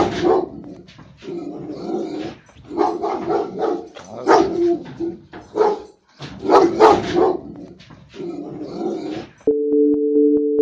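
Guard dog barking repeatedly in loud bursts with short pauses between them. About a second before the end the barking stops and a steady electronic two-note tone with a regular tick begins.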